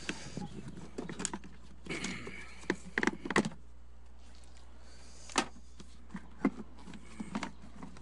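Plastic engine-bay trim being handled and pried loose: scattered clicks, knocks and short scrapes as the cowl molding and cabin-filter housing cover come off, with a sharp click about five seconds in.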